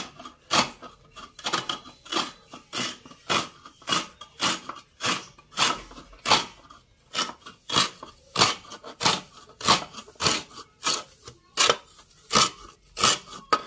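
Fresh coconut half being scraped against the serrated metal blade of a traditional floor-mounted coconut scraper, a quick rasping stroke repeated about one and a half times a second, the shredded coconut dropping onto a steel plate below.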